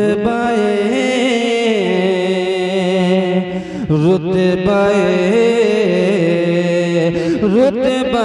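A male naat reciter singing long, drawn-out held notes with ornamented turns, one unaccompanied voice, breaking briefly about four and seven and a half seconds in.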